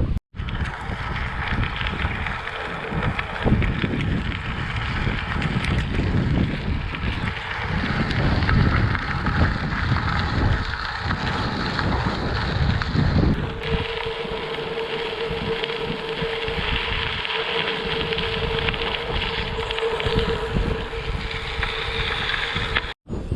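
Strong wind buffeting the camera microphone, a dense rushing roar with heavy low rumble. About halfway through the sound changes abruptly, the rumble eases, and a steady mid-pitched hum runs under the wind noise.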